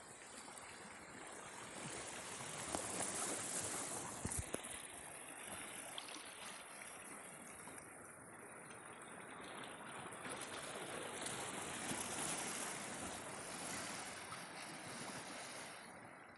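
Rushing noise of sea wind and water, swelling and easing, with a couple of sharp knocks about three and four seconds in.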